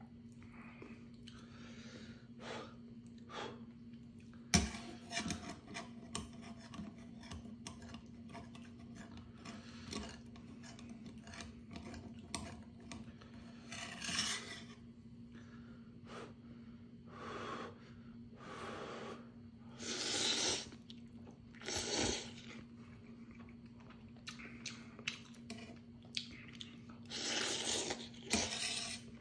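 A person eating instant ramen: chewing, with a series of loud noodle slurps spread through, the longest near the end, and a sharp click about four and a half seconds in. A steady low hum runs underneath.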